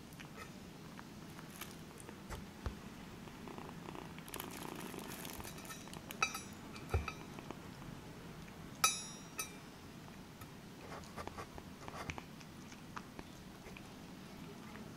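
Ginger kitten eating from a stainless steel bowl: soft licking and chewing with small clicks of teeth and tongue on the metal, the sharpest clink about nine seconds in.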